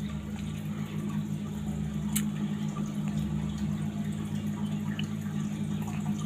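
Aquarium water trickling and bubbling over the steady low hum of its pump, with one sharp click about two seconds in.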